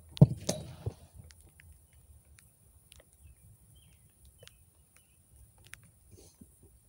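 A soccer ball kicked hard on an artificial-turf pitch: one loud thud about a quarter second in, then two more knocks within the next second, and only faint scattered ticks after that.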